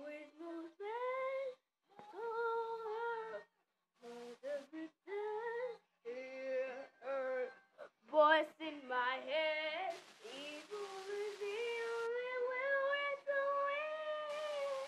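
A solo voice singing without accompaniment, in short phrases with held, wavering notes and brief silent gaps between them. A rushing hiss comes in under the singing twice, about ten seconds in and again near the end.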